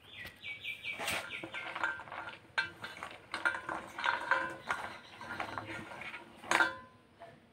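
Kitchen utensils and dishes clinking and knocking as they are handled, in a run of scattered clicks, some with a brief metallic ring. A quick series of high chirps sounds in the first second.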